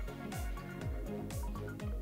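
Background music with a steady beat: a deep kick drum about twice a second and a sharp hissing hit about once a second over held notes.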